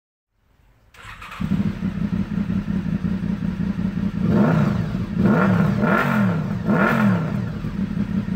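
Motorcycle engine comes in about a second in and idles, then is revved in four quick blips, each rising and falling in pitch.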